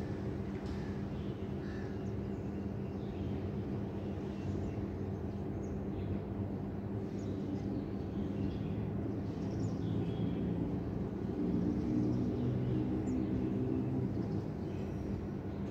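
City background noise: a steady hum of distant traffic and engines, with scattered short bird calls above it. An engine hum grows louder for a few seconds near the end.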